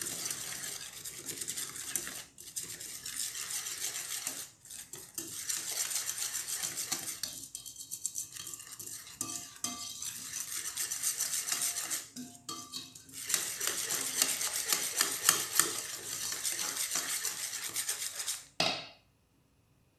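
Wire balloon whisk beating a thick egg-yolk batter in an enamel bowl: fast, continuous scraping and clinking strokes against the bowl, with a few short pauses. It stops shortly before the end.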